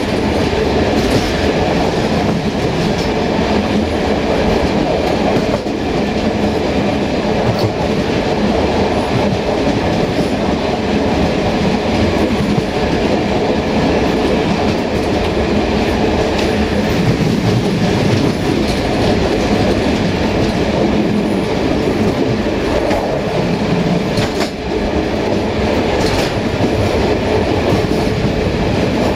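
Rear coach of a passenger train running along the track: a steady rumble of wheels on rails, with a click from the wheels now and then.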